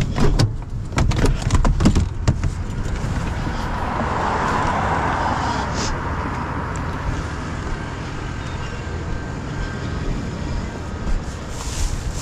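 A few sharp knocks and rattles in the first two seconds, then a steady low motor-vehicle rumble. A rushing hiss swells about four to six seconds in and then fades.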